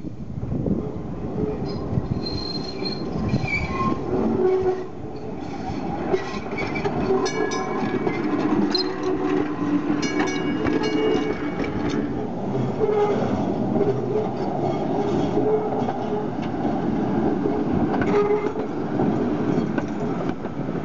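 Electric PCC streetcar rolling past close by on a curved track, its motors humming and its wheels clicking over the rail joints. High squeal from the wheels grinding on the curve, strongest about midway through.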